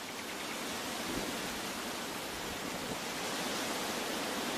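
Steady, even hiss of water, as heard in a wet rainforest.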